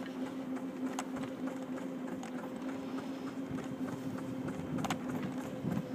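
A ridden scooter's motor running at a steady speed with a constant hum, over the rumble of its wheels on the path, with a few light clicks.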